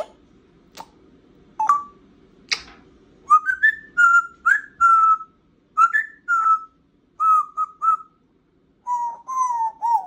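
African grey parrot whistling a string of short notes, some sliding upward, with a few lower notes near the end; it starts with a few sharp clicks.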